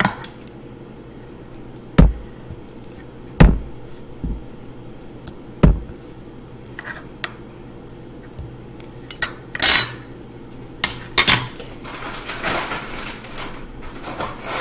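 Metal spoons knocking and scraping on a thick wooden end-grain butcher block as softened ice cream is chopped and smoothed on it. There are single sharp knocks with a dull thud a second or two apart, and a longer scrape about ten seconds in.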